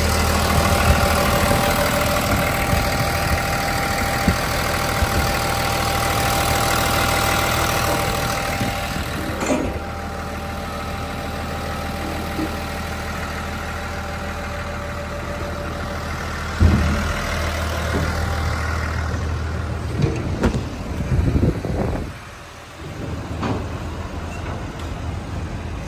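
Volvo EW210D wheeled excavator's diesel engine idling steadily, a little quieter after about nine seconds, with a few knocks and clatters in the second half.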